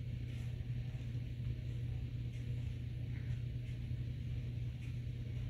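A steady low mechanical hum, with a few faint soft ticks scattered over it.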